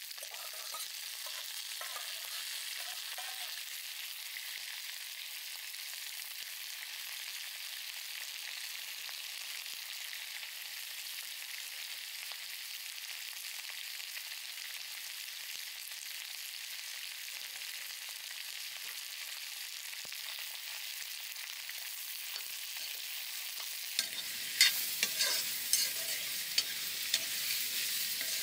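Food sizzling as it fries in a pan, a steady hiss. Near the end, a utensil knocks and scrapes against the pan in a string of sharp clicks as the food is stirred.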